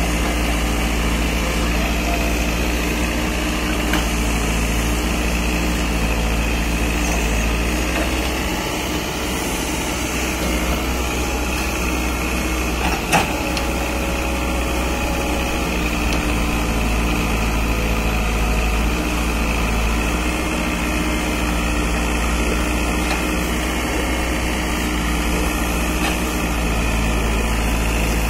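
Caterpillar 424B backhoe loader's diesel engine running steadily while the backhoe arm digs, with a single sharp knock about halfway through.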